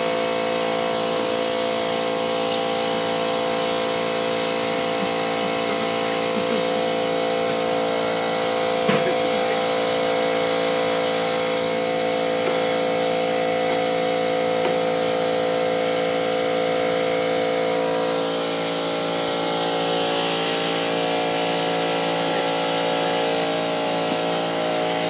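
Portable air compressor running steadily, a constant droning hum with a fixed pitch. There is one brief knock about nine seconds in.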